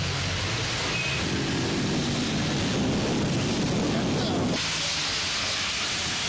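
Heavy rain pouring in a steady hiss, with the low rumble of a car driving through water on the wet road in the middle; the rumble stops abruptly about four and a half seconds in and the hiss of the downpour turns brighter.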